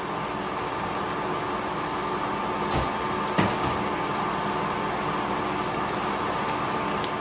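Frozen stir-fry vegetables and rice sizzling in a pan on an induction cooktop, a steady hiss over the cooktop's hum with a faint steady whine. Two soft knocks come near the middle.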